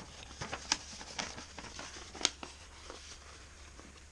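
Irregular light clicks and rustling of small objects being handled, with the sharpest click about two and a quarter seconds in, then quieter.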